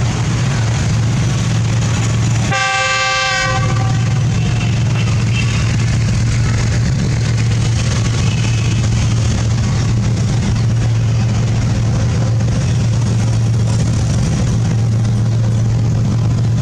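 Diesel-electric locomotive (Pakistan Railways GEU40) running through floodwater over the tracks: a steady low engine drone under a constant rushing noise. About two and a half seconds in, the locomotive's horn gives one blast of about a second.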